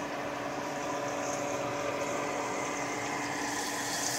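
A steady mechanical hum. Near the end it is joined by the hiss of breaded chicken tenders frying in a pan of oil, growing louder.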